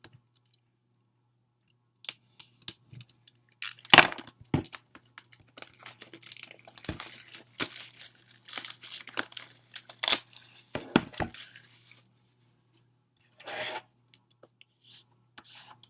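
Plastic shrink-wrap being torn and peeled off a CD album, crinkling and crackling for about ten seconds after a quiet start, with a sharp knock about four seconds in and a short rustle near the end.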